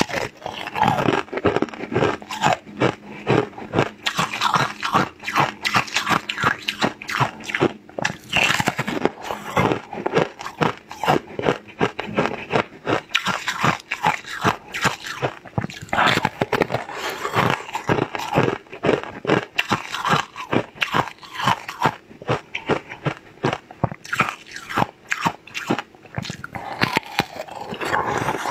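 Close-up crunching as a hard, pink, corn-cob-shaped treat is bitten and chewed, a dense run of sharp cracks that goes on without a break.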